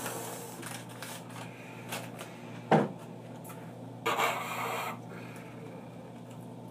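Paper tea bag being handled and rubbed between fingers: soft rustling with small clicks, a short sharp knock about three seconds in and a brief louder rustle about four seconds in.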